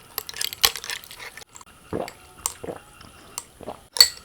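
Close-up wet, sticky food-handling sounds: a scattered run of short clicks, squishes and drip-like snaps, the sharpest about half a second in and another near the end.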